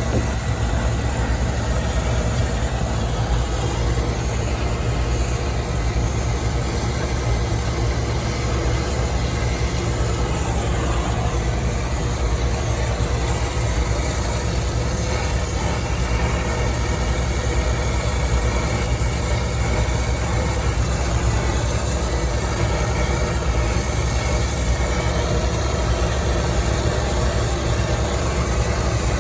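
Brazing torch flame burning steadily with a broad rushing noise while a refrigerant line is brazed onto a compressor, over a steady low rumble.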